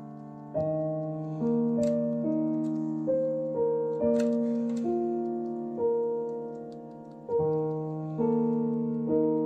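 Background piano music: a slow melody of single notes, each struck and left to ring and fade.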